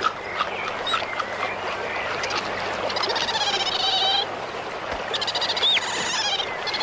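Raspy animal calls, two longer ones in the second half, with a short whistled note, over a steady hiss.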